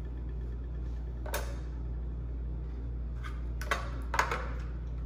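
A few sharp clicks and knocks of hard plastic food-processor parts being handled and fitted together, the loudest about four seconds in, over a steady low hum.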